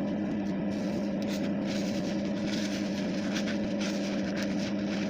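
Soap-soaked polyester fiberfill being mixed by hand into slime, with faint scattered wet squishing, over a steady low hum.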